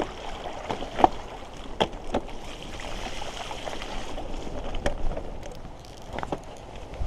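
Mountain bike riding along a dirt trail beside a flowing river: a steady rush of river water and tyre noise, broken by several sharp knocks and rattles of the bike over bumps.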